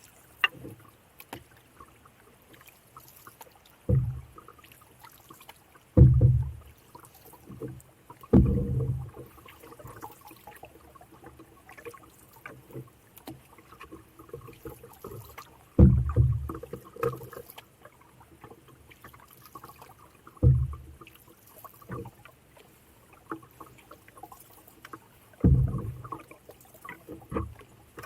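Canoe paddle strokes in the water: six dull, low strokes at uneven intervals, with small faint ticks between them.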